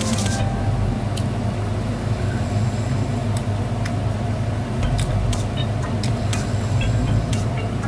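A steady low hum runs throughout, with scattered small clicks and crackles from fingers picking at fried chicken in a paper box.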